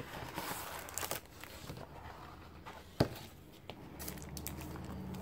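Rustling and scraping of a cardboard mailer being opened and a plastic-sleeved packet of vellum sheets sliding out, with a single sharp tap about three seconds in.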